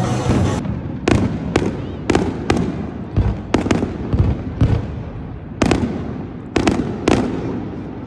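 Fireworks going off: about a dozen sharp bangs at irregular intervals, each followed by a fading echo. Music cuts off just under a second in.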